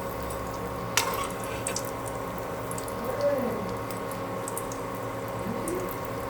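Breaded chicken Kiev frying in hot oil in a pan: a steady sizzle with scattered small crackles over a steady hum. There is a single sharp knock about a second in.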